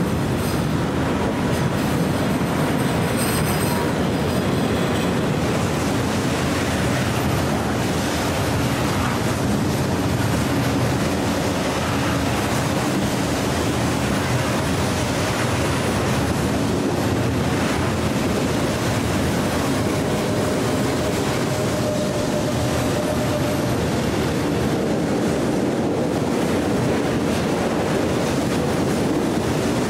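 Long freight train of covered hopper wagons rolling past behind an ET22 electric locomotive: a steady, loud run of wheels on rail, with thin wheel squeal in the first few seconds.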